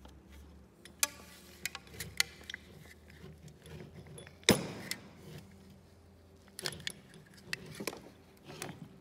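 Thin metal shim crinkling and clicking as a Tolomatic air-cylinder piston, its O-rings wrapped in the shim, is worked into the cylinder tube by hand: scattered sharp metallic clicks and crackles, the loudest about halfway through.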